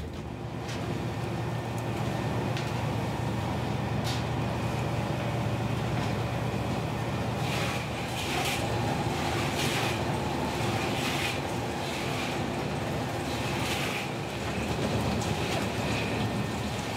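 Steady low drone of a fishing trawler's engine and deck machinery, heard from the steel fish-processing deck. From about halfway through come short clattering, wet-sounding hits, about one a second, as fish are handled in the steel troughs.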